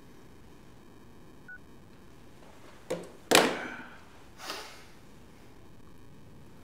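A phone handset is put down after a call: a short faint beep, then about three seconds in two sharp knocks close together, the second the loudest, as it is tossed down onto a hard surface, followed by a softer noise about a second later.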